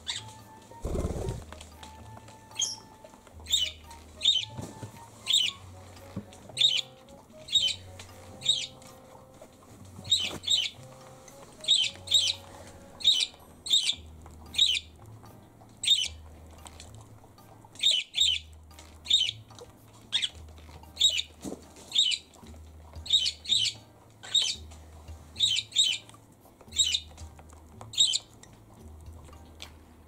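A small pet parrot chirping over and over, short sharp high-pitched calls about one or two a second with a few brief pauses, over quiet background music with a stepping bass line.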